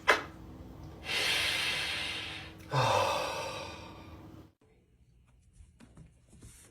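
A sharp click, then two long breathy exhalations of about a second and a half each, one right after the other.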